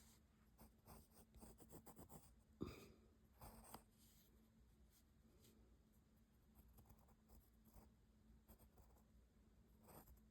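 Pencil drawing on paper: faint, quick scratchy strokes. They come in a run over the first few seconds, with a sharper tap a little over two and a half seconds in, then thin out to occasional light strokes.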